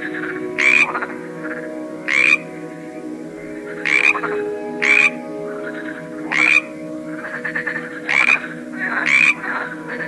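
Frogs croaking: one loud frog gives seven short calls, roughly one every second or so, over a fainter chorus of other frogs and a steady low hum.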